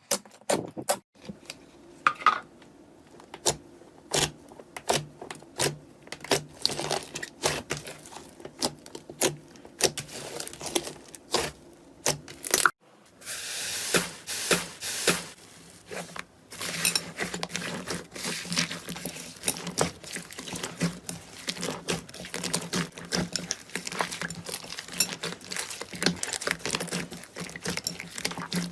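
Slime being squished, pressed and stretched by hand, giving many sharp irregular clicks and crackles. A denser crinkling stretch comes about halfway through.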